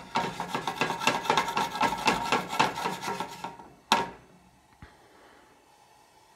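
Eggs being stirred quickly in a stainless steel frying pan with a utensil: a fast, even scraping of about nine strokes a second for roughly three and a half seconds, then a single sharp knock.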